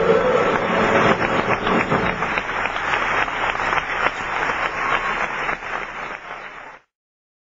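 Audience applauding at the end of a stage song, with the final sung note dying away at the start. The clapping slowly fades and cuts off abruptly near the end.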